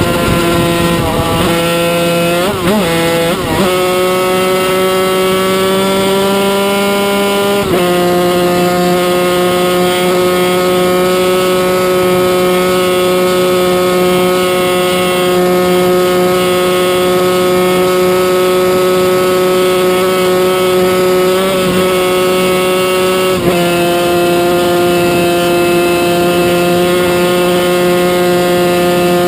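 1995 Yamaha TZ250 two-stroke race engine heard from onboard at high revs. The note dips and picks up again through gear changes in the first few seconds, then holds nearly steady, with brief breaks in the note about a quarter of the way in and again about four-fifths of the way in.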